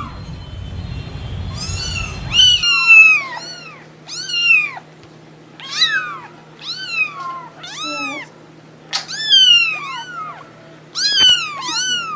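A kitten meowing over and over in high, bending cries, roughly one every half second to a second. A low rumble sits under the first couple of seconds.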